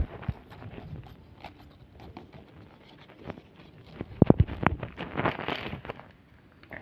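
Scattered taps and rustling handling noises, with a quick cluster of sharp clicks about four seconds in.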